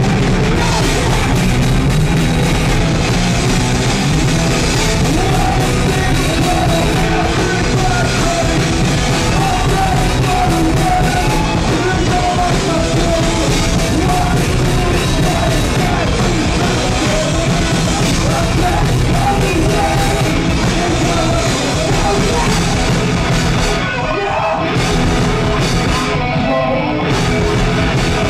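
Live grunge/stoner rock band playing loud: distorted electric guitars, bass and drums, with yelled vocals over the top.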